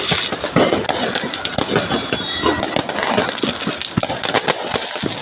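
Fireworks crackling: a dense, irregular run of sharp pops and cracks.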